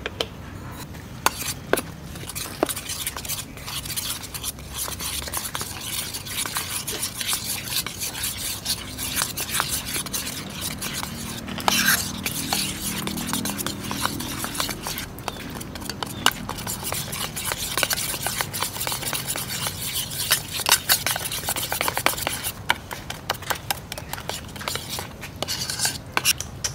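Metal spoon stirring a thick egg-and-flour batter in a stainless steel bowl, with rapid, continual clinks and scrapes of the spoon against the bowl.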